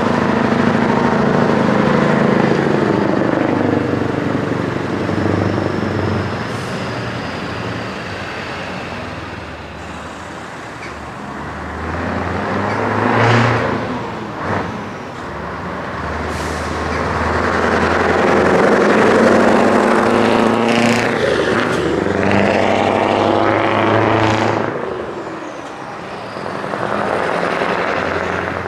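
Scania 143 truck's V8 diesel engine pulling away and accelerating, its note rising and falling with the gear changes as it drives past. A few short, sharp sounds stand out about halfway through and again later.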